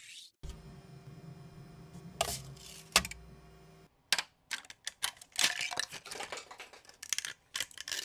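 A Bambu Lab P1S 3D printer runs with a steady hum of several held tones, with two sharp clicks near the middle. Then, from about four seconds in, printed plastic support fins and brim are snapped and peeled off a freshly printed tray, giving a quick run of sharp cracks and snaps.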